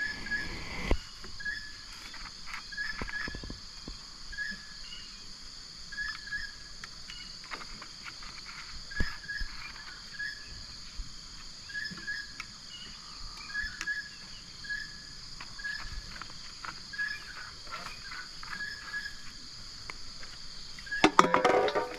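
Outdoor creekside ambience: a steady high insect drone with a short chirp repeating about once a second, and scattered faint clicks. A louder burst of noise comes near the end.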